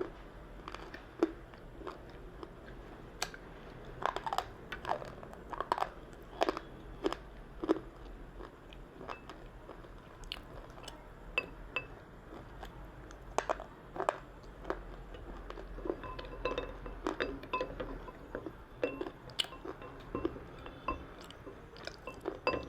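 Slate pencils being bitten and chewed: sharp, irregular crunches and snaps, a few to several a second, throughout.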